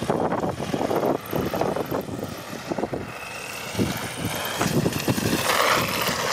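Haiboxing 2995 RC desert truck driving on asphalt. Its motor whines in irregular spurts of throttle, mixed with tyre noise on gritty pavement.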